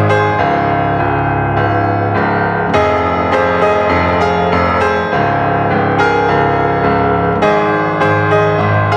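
Background piano music: a slow keyboard piece of held chords, with new notes struck every second or so.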